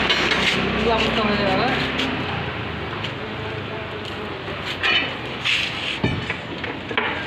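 Steel reinforcing rods clinking and knocking against each other and the rod-bending frame, a few sharp metallic hits in the second half, over street noise with voices and a steady engine hum in the first couple of seconds.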